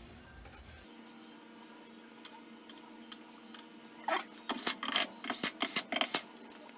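Hand tools working on a car's rear disc brake during reassembly: a few scattered metal clicks, then from about four seconds in a quick run of sharp clicks and scrapes, over a faint steady hum.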